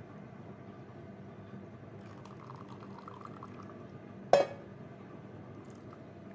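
Thin water-chestnut-flour and tapioca batter poured from a stainless steel bowl into a pot of brown sugar syrup, a soft steady pouring. About four seconds in comes a single sharp metallic clink with a brief ring, from the steel bowl.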